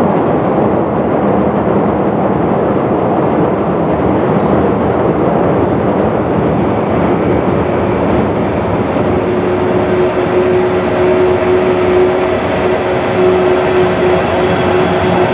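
JR East 115 series six-car electric multiple unit running over a steel railway bridge: a steady loud rumble, with a humming tone joining in about nine seconds in.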